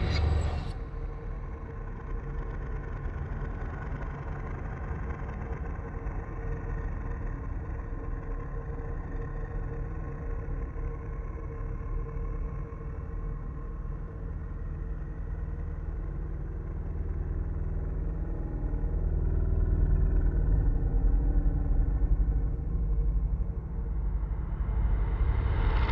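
Dark ambient drone: a low, steady rumble with a faint held tone above it, swelling louder about two-thirds of the way through.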